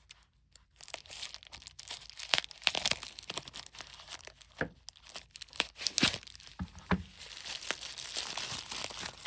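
Packaging crinkling, rustling and tearing as a wrapped bundle of beads is opened by hand, with many sharp crackles and clicks.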